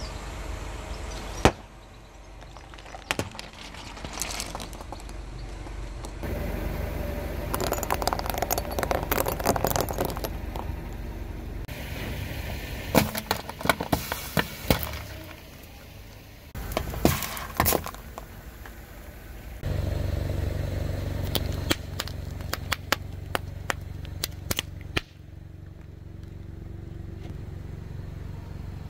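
A car rolling slowly while its tyre crushes objects, with a steady low engine hum under repeated sharp cracks and crunches. There is one loud crack about a second and a half in, and clusters of crackling crunches around the middle.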